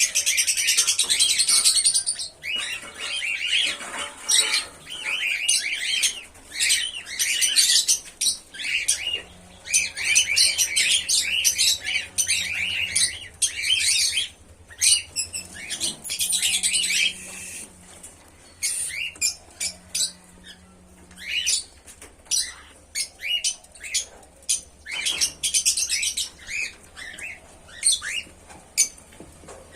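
Pearl cockatiels chirping and calling in a rapid series of short, high-pitched chirps, densest in the first half and thinning out into shorter, scattered chirps later.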